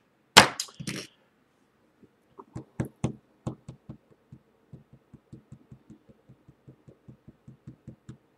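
A sharp knock about half a second in, then light taps and knocks that settle into an even run of about four a second, as hands handle a stack of trading cards on a desk.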